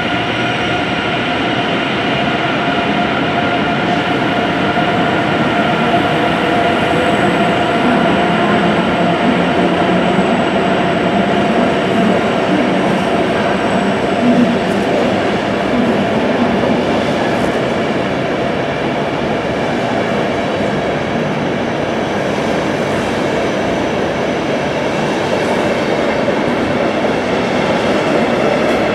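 Passenger coaches of a locomotive-hauled night train rolling past in an enclosed underground station as the train departs: a steady rumble of wheels with some clicking over rail joints and high, steady whining tones over it.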